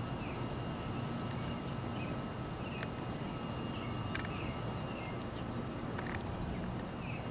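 Faint, short bird chirps come irregularly, about one a second, over a steady low rumble, with a few sharp clicks.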